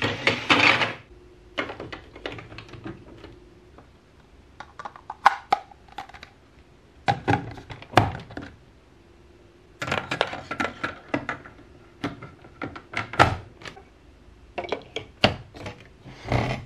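Large plastic building blocks and marble-run track pieces being handled and pressed together: irregular clacks and snaps of hard plastic, coming in clusters with short pauses between.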